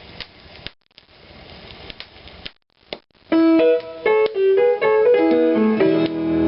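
A vinyl record playing on a Dual 604 direct-drive turntable: for about three seconds there is only faint surface hiss with clicks from the stylus in the lead-in groove, then a piano intro comes in.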